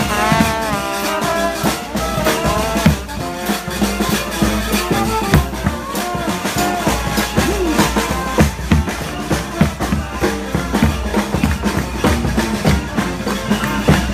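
Street brass band playing up-tempo funeral-procession music. The horns are prominent for the first couple of seconds, then the bass drum and snare beat carries the rest, with the horns softer underneath.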